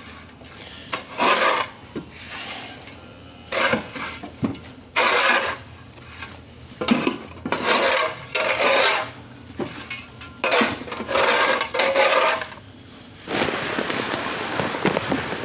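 Broom sweeping loose hay, a series of scraping strokes at irregular intervals, followed near the end by a steadier rustling.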